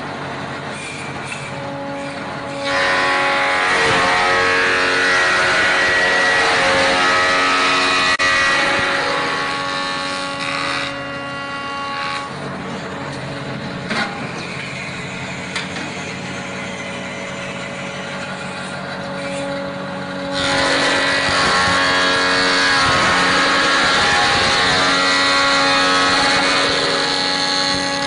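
Automatic hammer-handle copying lathe running, its motors whining steadily while the spinning cutter drum shapes a wooden blank. The sound grows louder and fuller during two long stretches of cutting into the wood.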